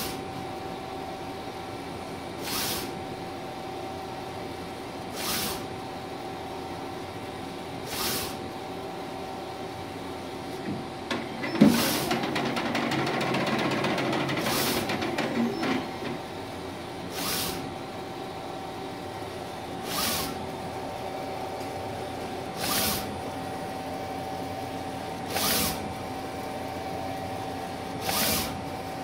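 Mimaki 3042 HG UV-LED flatbed printer printing. Its print-head carriage sweeps across the bed about every two and a half to three seconds, each pass a short swish, over a steady hum. About twelve seconds in, a knock starts a louder, busier stretch of mechanical noise that lasts about four seconds.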